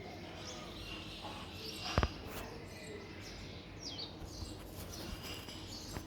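Small birds chirping in short, falling notes over background outdoor noise, with one sharp knock about two seconds in.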